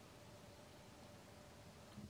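Near silence: a faint steady hiss with a faint steady hum.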